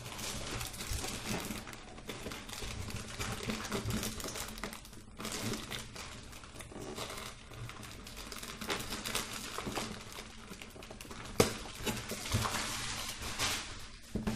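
Plastic wrapping crinkling and rustling as it is picked and peeled off a cardboard drone box, with one sharp click about eleven seconds in.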